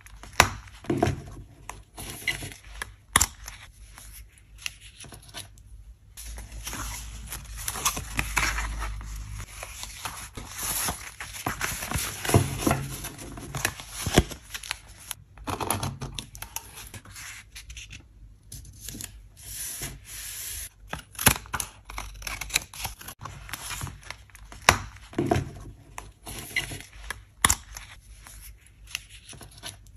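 Paper handling: pages of small spiral-bound journals being turned and flipped by hand, rustling, with scattered sharp clicks.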